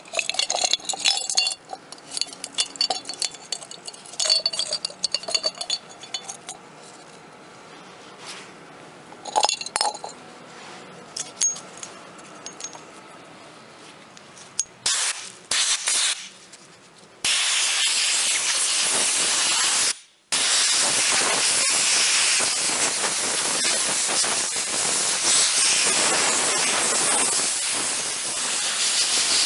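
Metal parts clinking and rattling against a glass jar as a gloved hand stirs them in cleaning liquid. A little past halfway a loud, steady spray hiss starts, stopping for a moment once, as the threaded part is sprayed down.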